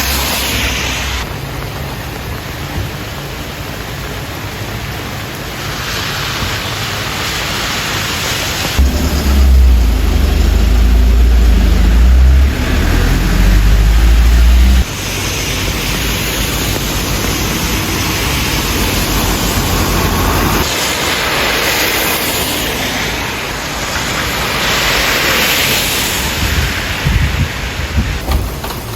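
Steady hiss of a heavy downpour, with a loud deep rumble lasting about six seconds near the middle that cuts off suddenly.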